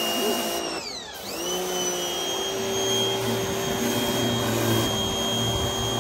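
Spear & Jackson 2200 W electric pressure washer running with a steady high whine. About a second in, the motor briefly slows and then spins back up. It then runs on steadily, with water spraying onto concrete through a rotary patio-cleaner head.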